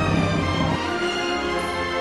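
Orchestral music with held, sustained notes; the harmony shifts about three-quarters of a second in.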